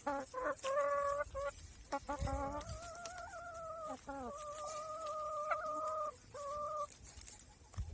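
Chickens calling: a few short clucks, then one long drawn-out crow held for several seconds.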